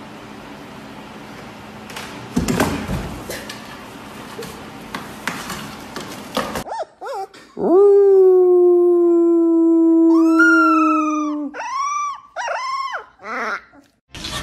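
Room noise with a few knocks, then a man holding one long low howl while a black puppy joins in with a higher howl. The puppy ends with three short rising-and-falling howls.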